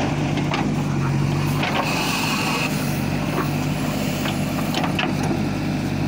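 JCB backhoe loader's diesel engine running steadily under load as the excavator arm digs, with a few sharp knocks of the bucket and linkage and a brief high whine about two seconds in.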